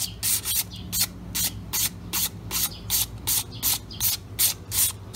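Sandpaper rubbed back and forth by hand over a motorcycle drum brake shoe's lining, in quick even strokes of about three a second. It is scuffing off the blackened, glazed surface that makes the brake slip.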